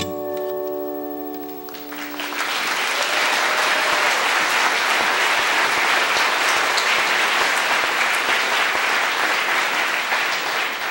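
A final chord on an acoustic guitar is struck and rings for about two seconds, then an audience applauds steadily to the end.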